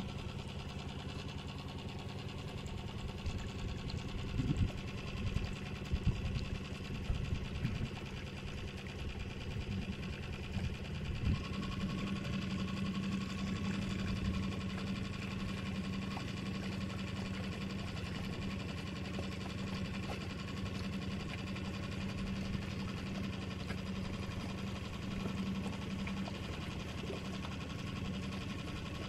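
A small motor running with a steady hum that gets a little stronger about a third of the way in, with a few knocks in the first part.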